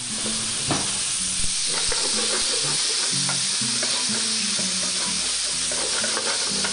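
Picanha steaks and onion sizzling steadily in oil in a frying pan, stirred with metal tongs, with a few light clicks in the first couple of seconds.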